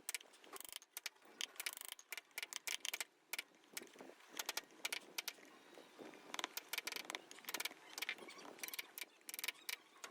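Hand carving tools cutting into wood: rapid, irregular short taps and scrapes that come in clusters.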